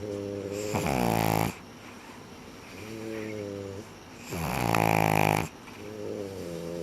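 Sleeping French bulldog and pug snoring: pitched, rattly snores in a slow rhythm, a softer snore alternating with a louder one, about five snores in all.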